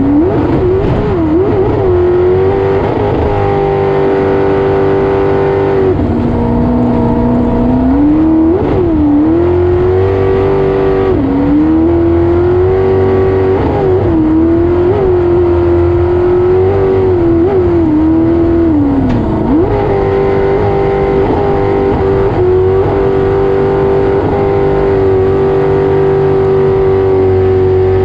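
Racing jet boat's engine running hard at high revs. Its pitch dips and climbs back several times, once holding lower for about two seconds.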